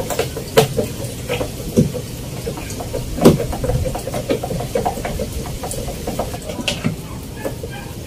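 Hands and a screwdriver working at the plastic spin-dryer timer housing of a Sharp washing machine while its screws are being taken out: scattered sharp clicks and knocks, the loudest about three seconds in, over steady background noise.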